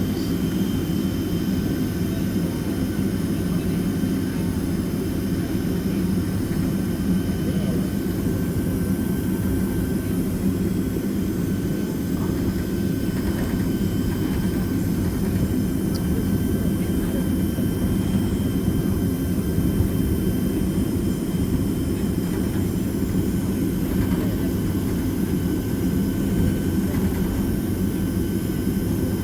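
Steady drone of a Boeing 767-300ER's jet engines and airflow heard inside the passenger cabin, a deep, even rumble with faint steady whining tones above it.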